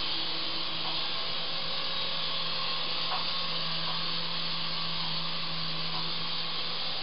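Syma S109 mini R/C helicopter's small electric motors and rotors running at full throttle: a steady whirring buzz with a low hum under it.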